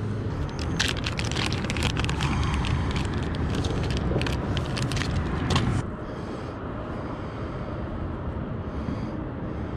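Crinkling and rustling of a plastic soft-bait bag as a Senko worm is pulled out and handled, over a steady low rumble. The crinkling stops about six seconds in, leaving only the rumble.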